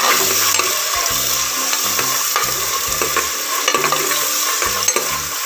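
Chopped onion, ginger and green chillies frying in hot oil, sizzling steadily, while a spoon stirs and scrapes them around the pan with scattered clicks.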